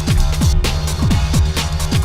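Electronic dance music with a steady fast kick-drum beat and heavy bass.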